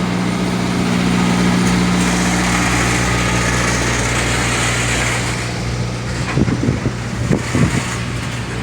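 CSX freight train's diesel locomotives pulling hard under heavy throttle, a steady low engine drone, as the train moves in reverse past the crossing with the rumble of rolling freight cars. The throttle is high, guessed at notch 6 or 7.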